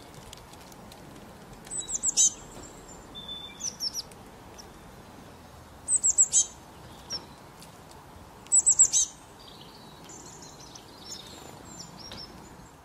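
A bird calling: three loud bursts of quick, very high notes that each sweep downward, about 2, 6 and 9 seconds in, with softer high chirps between them.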